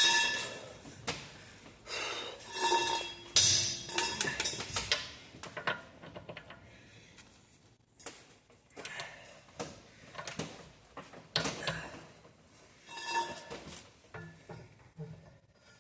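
Metal hand tools clinking and clanking against steel while sheared wheel lock bolts are being worked on, several knocks leaving a short metallic ring; busiest in the first few seconds, then scattered clinks.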